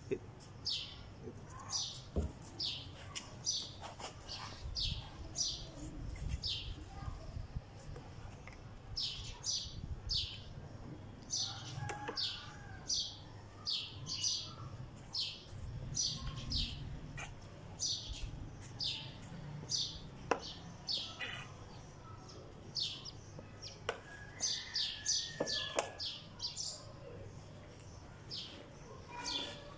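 Sparrow chirping: a long series of short, high chirps, often several in quick succession, with brief pauses between the runs.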